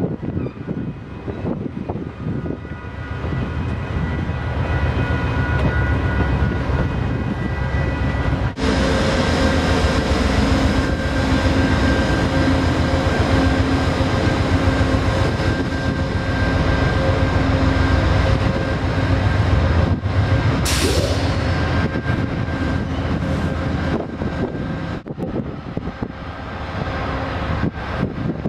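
Amtrak passenger train rolling past, then a GE P42DC Genesis diesel locomotive running close by with a steady engine drone and whine. A brief hiss about two-thirds of the way through.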